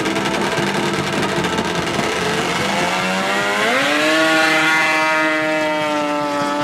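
Racing snowmobile with a Rotax engine accelerating hard. The engine runs rough for the first few seconds, then its pitch climbs steeply about three and a half seconds in and holds at a high, steady note at full throttle.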